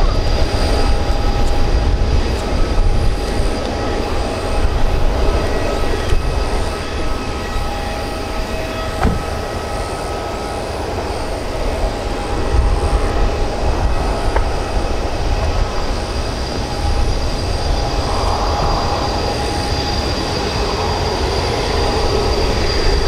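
Boeing 787-8 airliner's Rolls-Royce Trent 1000 turbofan engines running at low power as it taxis after landing: a steady whine with several held tones over a low rumble.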